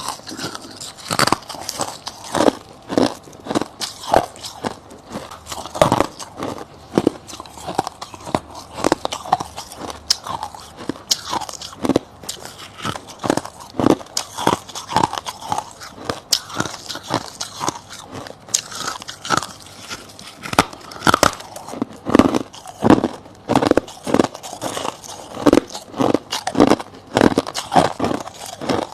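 Close-up biting and chewing of soft humidifier frost and crushed ice: a continuous run of crisp crunches, often one to two a second, with some stronger bites later on.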